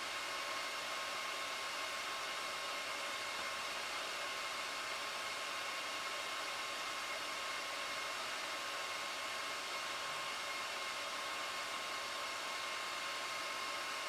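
Hand-held hair dryer running steadily: an even hiss of blown air with a faint high steady whine.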